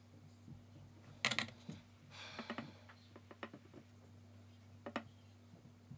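Paintbrush working paint on a hard palette: a quick cluster of clicks about a second in, a short scraping swish, then scattered light taps and a last click near the end. A faint steady hum runs underneath.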